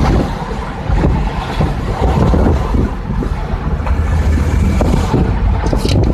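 Car driving at road speed, heard from inside the cabin: a steady low rumble of engine, tyres and wind noise. A few sharp clicks come near the end.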